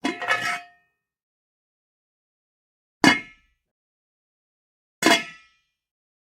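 Pots and pans clanging: three separate metal strikes, each ringing briefly. The first is a short clatter of a few quick knocks, the next two single clangs about 3 s and 5 s in.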